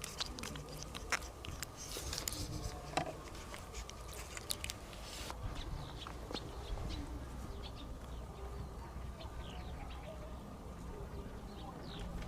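Sharp clicks and taps in the first five seconds, then faint short bird chirps repeating, over a steady low outdoor hum.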